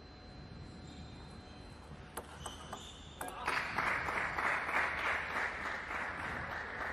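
A few sharp clicks of a table tennis ball bounced before a serve, then scattered clapping from onlookers from about halfway in.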